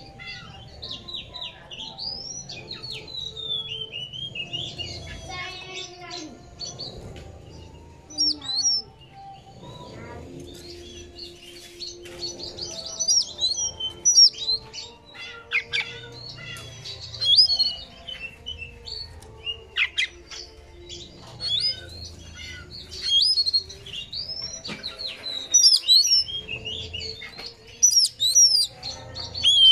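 Oriental magpie-robin singing: quick whistled notes, slurred glides and short trills in irregular phrases, some of them loud.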